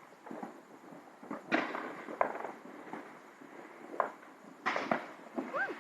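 Fireworks bursting: several separate bangs a second or so apart, each with a short echoing tail. The loudest come about a second and a half and two seconds in, with more near the end.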